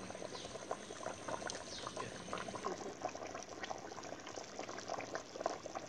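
Thick mutton curry boiling in a wide pot, a steady run of small irregular bubbling pops.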